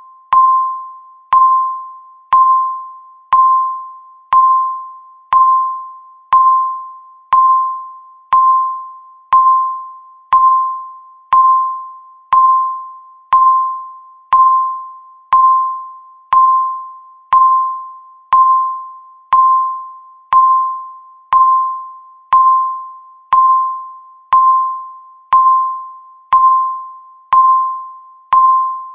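Countdown timer's electronic beep sounding once every second, each a single clear chime-like tone that starts sharply and fades away before the next, ticking off the seconds left.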